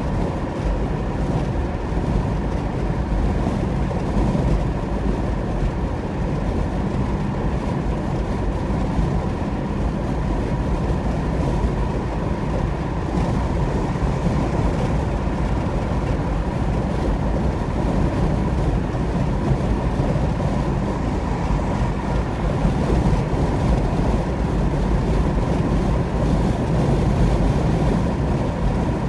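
Steady road noise of a car driving at highway speed, tyre and engine noise with a faint steady tone over it.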